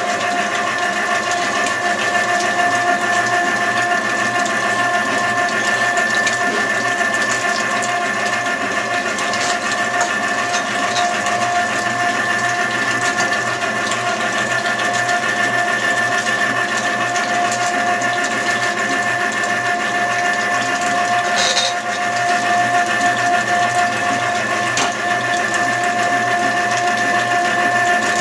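Electric tomato strainer (passata machine) running under load, its motor giving a steady whine as boiled tomato pulp is pressed through it.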